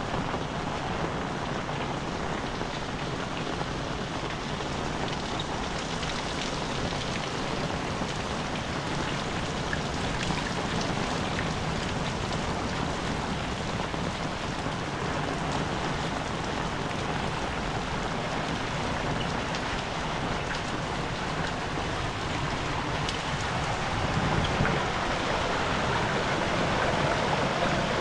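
Heavy rain pouring steadily, an even hiss of drops hitting the ground and surfaces, growing a little louder near the end.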